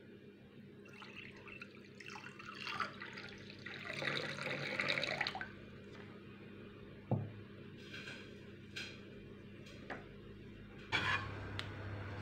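Water running or pouring for a few seconds, swelling and then stopping, followed by a few light clicks and knocks of kitchen things. Near the end a low steady hum starts.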